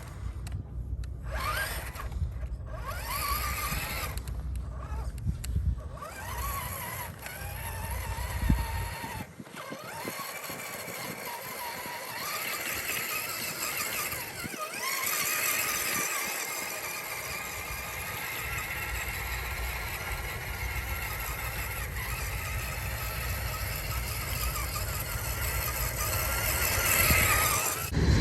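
RC scale crawler truck driving on sand: its small electric motor and gearbox whine, rising and falling with the throttle and cutting out briefly a few times in the first several seconds, over a low rumble.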